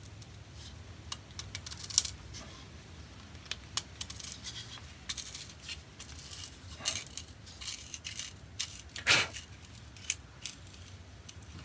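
Handling sounds of an old rusty infill plane, metal casing with wooden infill, being turned over and worked in the hands: scattered light clicks and taps, with a louder, longer handling sound about nine seconds in.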